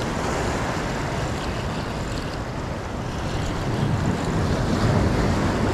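Wind buffeting the microphone over the steady wash of sea surf breaking on rocks, a low rumbling hiss that grows a little louder about four seconds in.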